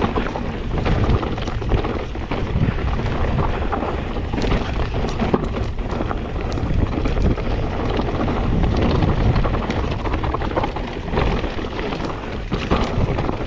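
Wind buffeting a GoPro's microphone on a fast mountain-bike descent, with steady tyre noise and frequent small knocks and rattles from the bike.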